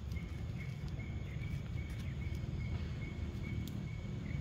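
Outdoor background: a steady low rumble with a thin, high, evenly pulsing call running through it and a few faint clicks.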